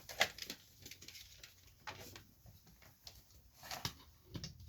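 A few light clicks and knocks from a plug and its cord being handled and pushed into a power strip, the strongest just after the start.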